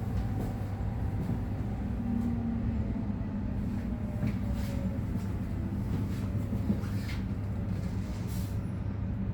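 Intercity passenger train running, heard from inside the carriage: a steady low rumble with a few faint clicks and rattles.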